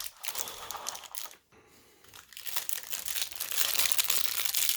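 Packaging crinkling and rustling as it is handled, with a brief near-silent pause about a second and a half in before the crinkling starts again and carries on.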